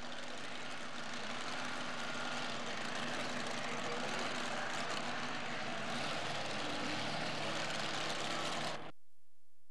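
Supercharged engine of a two-wheel-drive pulling truck idling steadily at the starting line before a pull. The sound cuts off abruptly near the end.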